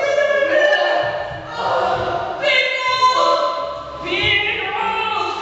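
Choral singing: several voices holding long notes that change pitch from one to the next.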